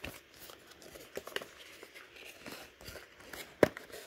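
Cardboard perfume box handled and opened by hand: scattered soft clicks and scrapes of card against card and fingers, with one sharper click about three and a half seconds in.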